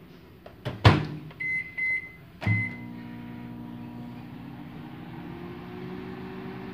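Hamilton Beach microwave oven: the door shuts with a sharp clack, three short keypad beeps follow, and on the last beep the oven starts and runs with a steady hum, heating a bowl of marshmallows.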